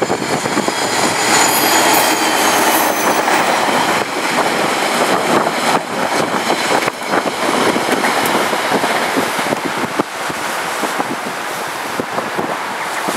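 A passenger train passing, hauled by a KiwiRail diesel locomotive: steady rushing wheel-on-rail noise with scattered clicks, and a faint high squeal in the first couple of seconds. The sound eases a little as the last carriages go by.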